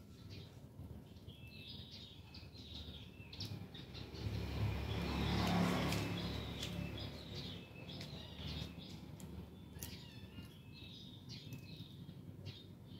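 Small birds chirping over and over, with a passing vehicle swelling and fading away around the middle.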